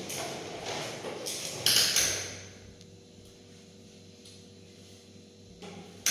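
Handling noise ending in two sharp knocks about two seconds in, then a faint steady hum, with another sharp knock at the very end.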